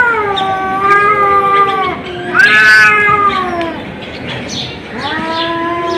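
Cat yowling: three long, drawn-out calls of one to two seconds each, the pitch bending slowly, with a short lull before the last one.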